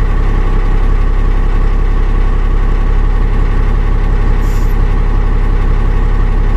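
Dodge Ram's 12-valve Cummins 5.9-litre inline-six diesel idling steadily just after a cold start, heard from inside the cab.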